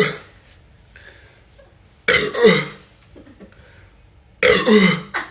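Boys burping loudly: two long burps about two and a half seconds apart, each dropping in pitch, after the tail end of another burp at the very start.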